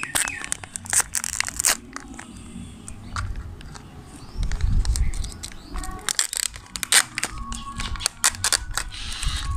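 Crinkling and tearing of the Jolo Chip's plastic packet as it is cut and pulled open, with sharp irregular crackles and the cardboard box being handled. A few dull thumps come about halfway through.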